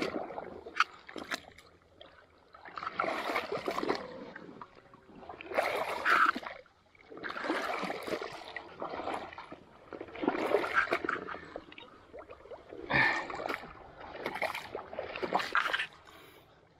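Boots wading through shallow marsh water: a splashing slosh with each stride, one every two to three seconds.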